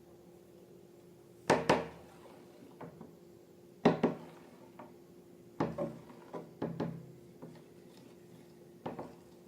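A few sharp clicks and taps, mostly in quick pairs, over a steady low hum.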